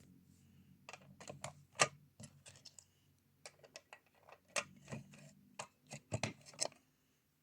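An irregular series of sharp clicks and taps over a faint low hum, loudest about two seconds in and again about six seconds in.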